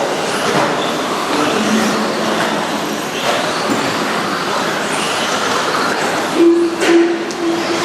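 A pack of radio-controlled off-road racing trucks running on a dirt track, a steady mixed whine and rush of motors and tyres. About six and a half seconds in, a low steady tone starts sounding in short repeated pulses.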